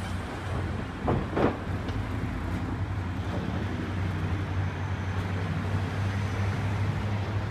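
Street traffic noise under a steady low engine hum, like a vehicle idling or passing; two brief louder sounds stand out a little over a second in.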